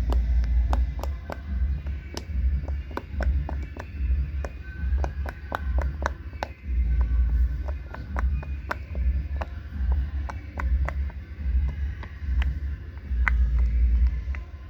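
Plastic fidget toys being handled, giving irregular sharp clicks and taps, some with a brief ringing ping, over a low rumble.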